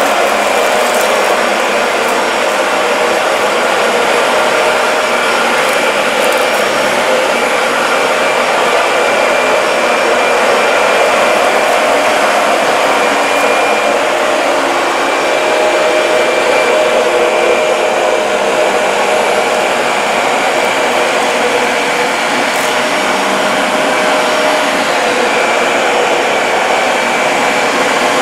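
Dyson DC40 MKII upright ball vacuum cleaner running steadily while vacuuming a rug: a constant rush of air with a steady motor whine.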